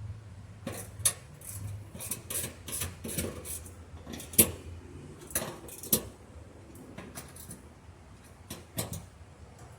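Socket ratchet tightening bolts: scattered metallic clicks and clinks at irregular intervals, the sharpest about four and a half seconds in.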